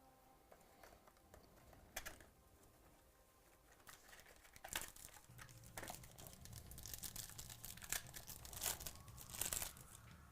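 Plastic wrapping of a sealed trading-card pack being torn open and crinkled by hand: a single click about two seconds in, then a busy run of sharp crackles and rustles from about four seconds on.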